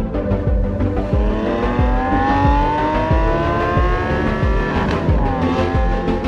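A car engine accelerating, its pitch climbing steadily for about four seconds and then dropping sharply at a gear change about five seconds in, over music with a steady beat.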